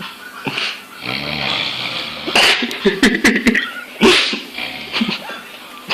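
A man snoring: a low snore about a second in, then two loud, sharp breaths about two and a half and four seconds in.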